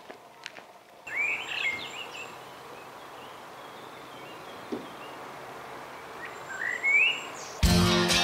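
Birds chirping over a light outdoor hiss: a quick run of rising chirps about a second in and another rising call near seven seconds. Background music starts near the end.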